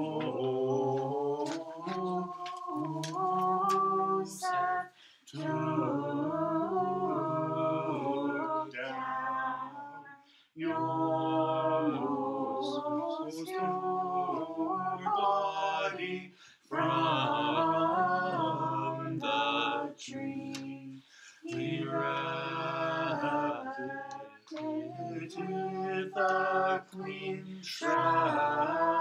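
A small group of voices singing a liturgical hymn unaccompanied, in phrases of a few seconds each with short pauses for breath between them.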